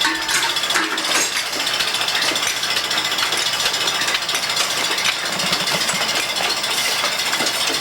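Milking machine running, its vacuum and pulsator making a steady hiss with a fast mechanical rattle.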